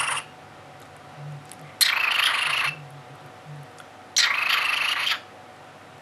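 Cockatiel making its raspy, cat-like purring call: two harsh noisy bursts of about a second each, a couple of seconds apart.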